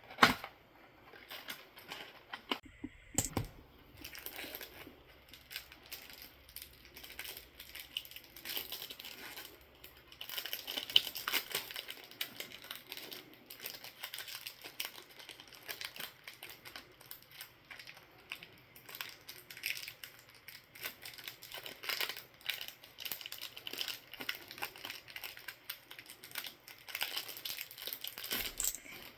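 Foil booster-pack wrapper crinkling and tearing as a Yu-Gi-Oh! pack is opened, with a sharp snap right at the start and many small crackles and clicks of the wrapper and cards being handled.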